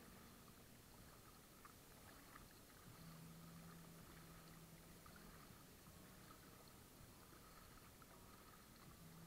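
Near silence: faint water lapping and dripping against a kayak's hull as it is paddled, with small scattered ticks. A faint low hum comes and goes.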